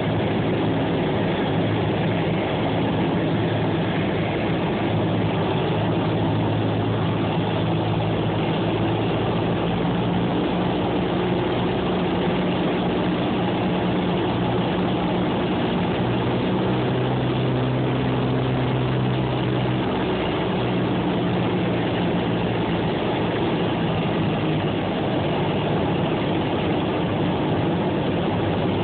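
Cessna's piston engine and propeller droning steadily on final approach, heard from inside the cabin, the pitch of the drone shifting a little about halfway through.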